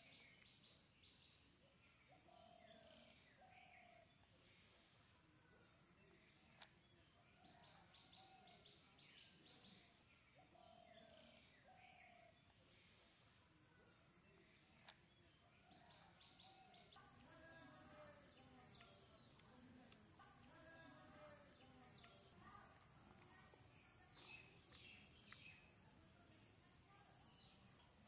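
Faint woodland ambience: insects droning steadily at a high pitch, with birds calling in short repeated notes throughout.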